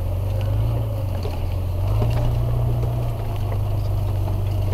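1999 Jeep Cherokee Laredo driving, heard from inside the cabin: a steady low engine and road drone that swells slightly about two seconds in, with scattered light rattles and knocks.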